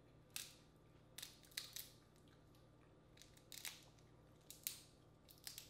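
Shells of boiled crawfish cracking and crackling as they are peeled by hand: a run of short, sharp cracks, about a dozen, spread irregularly throughout.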